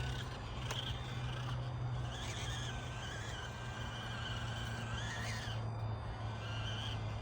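Axial SCX24 mini RC crawler's small electric motor and gearbox whining under throttle, the pitch stepping up and down as it crawls, with a brief rise about five seconds in and a single click near the start.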